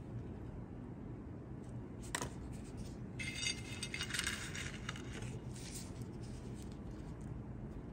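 A gloved hand dropping a dry bay leaf into a pot of raw ingredients: one sharp click about two seconds in, then a short crinkly rustle a second later, over a low steady hum.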